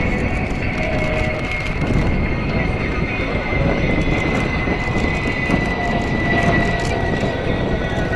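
Jet engine noise from a Mitsubishi F-2 fighter's single General Electric F110 turbofan as it rolls out after landing with its drag chute out: a steady rumble with a high turbine whine that slowly falls in pitch.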